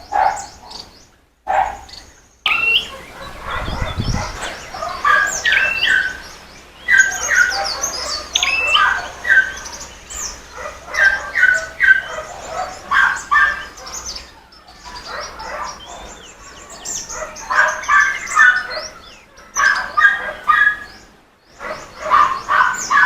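Many small birds in an aviary chirping and singing, with short calls and trills overlapping closely, and a brief low thump about four seconds in.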